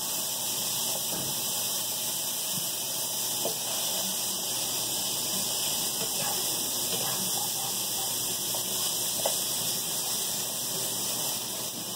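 Butter sizzling in a hot frying pan, a steady hiss, with a few faint clicks of the utensil stirring against the pan.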